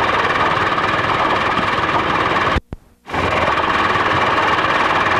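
Steady mechanical whir of a home-movie sound film camera's motor, with a faint steady tone. It cuts out for about half a second some two and a half seconds in, where the camera stops between shots, then picks up again unchanged.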